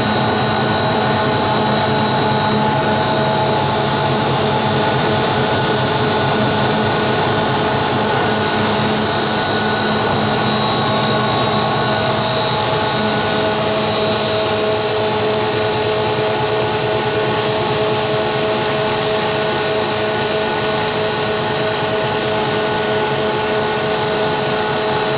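Twin-screw fish feed extruder line running steadily: a loud, even machine noise with a constant high whine over it.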